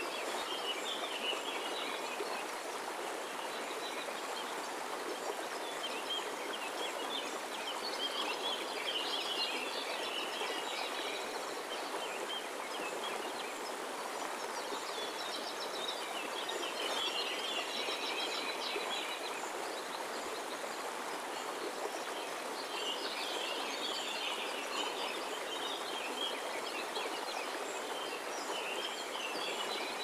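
Shallow stream rippling over rocks in a steady rush of water, with birds singing in spells of quick chirps that come and go several times over the water noise.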